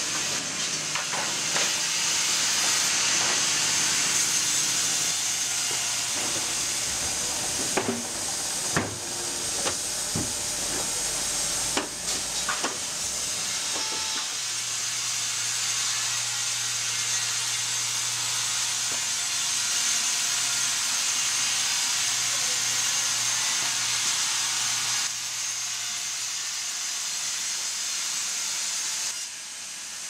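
Wood-Mizer WB2000 wide band sawmill running, its wide band blade sawing through a log with a steady high hiss. A few sharp knocks come in the middle, and the sound drops down a step near the end.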